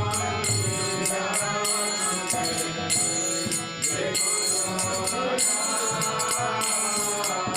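Devotional kirtan music: a Bengali bhajan sung over held instrumental tones, with small hand cymbals (kartals) ringing in a steady rhythm.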